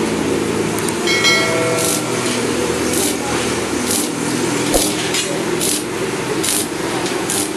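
Stick-welding arc crackling and sizzling steadily as an electrode welds a joint in square steel tubing. Sharp hissing ticks come about once a second, and a brief thin whistle sounds just over a second in.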